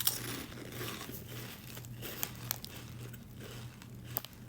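Crinkly snack-chip bag rustling as it is handled, with a few sharp crackles.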